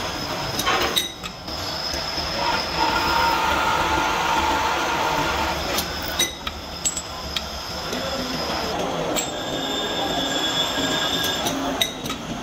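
Bench drill press drilling a cross hole through a steel tractor pin held in a jig. The bit squeals steadily as it cuts, in two spells, with metal clanks in between as the pin is handled.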